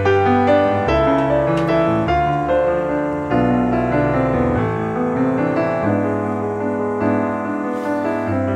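Background piano music: a slow melody of notes that ring on and fade, changing about once a second.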